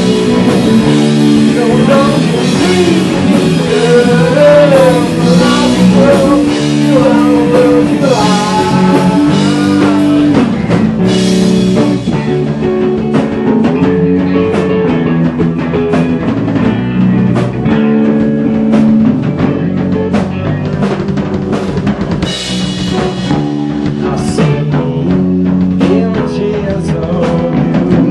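A rock band playing live: electric guitar, bass guitar and drum kit. About twelve seconds in, the cymbal wash drops away and the drums thin to separate sharp hits. The cymbals come back near the end.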